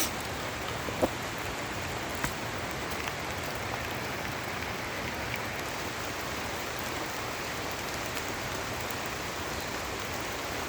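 Steady rain falling, with a couple of sharp ticks about one and two seconds in.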